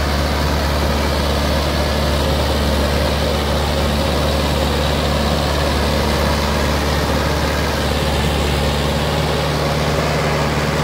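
Mahindra 575 DI tractor's four-cylinder diesel engine running steadily while it drives a seven-foot Shaktiman rotavator through the soil.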